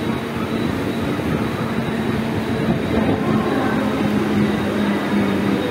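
Mumbai suburban electric local train (EMU) moving slowly along a station platform, heard from its open doorway: a steady rumble of wheels and running gear. A low motor hum drops slightly in pitch about four seconds in.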